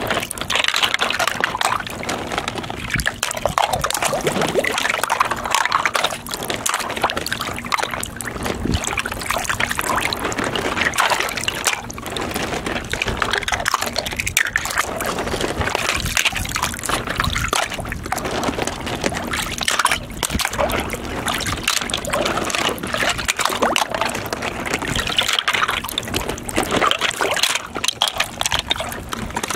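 Water sloshing and splashing in a shallow plastic tub as toy cars and trucks are pushed about and dunked by hand. There are frequent small knocks of the toys against each other and the tub.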